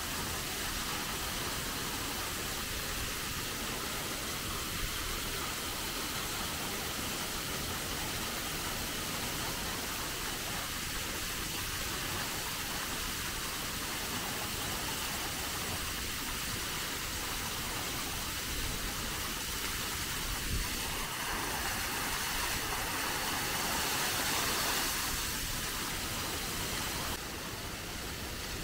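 Waterfall pouring over a rock face into a plunge pool: a steady rushing hiss. It swells slightly a few seconds before the end, then drops a little near the end.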